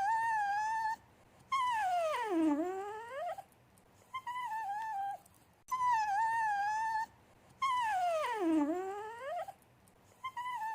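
A dog whining and whimpering to get attention. Short, high whines about a second long alternate with two longer whines that swoop down steeply in pitch and climb back up.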